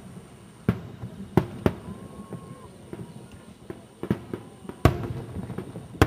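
Aerial fireworks shells bursting: a run of sharp bangs at uneven intervals, several close together early on, a pause, then more, with strong ones near the end.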